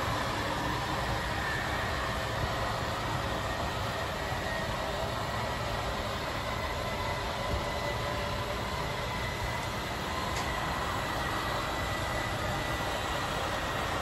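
RV slide-out's electric drive motor and gears running steadily as the slide-out room moves, with a faint steady whine.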